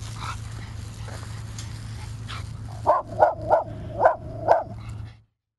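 Small Maltese–miniature schnauzer mix dog barking at a fire hydrant it dislikes: one faint bark at the start, then a quick run of five barks about three seconds in. A steady low hum runs underneath until the sound cuts off near the end.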